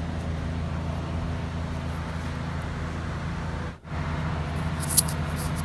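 A steady low hum of an idling engine, with a brief break about two-thirds through and a single sharp click near the end.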